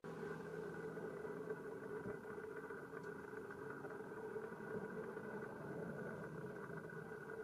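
A steady engine hum with a constant drone that does not rise or fall.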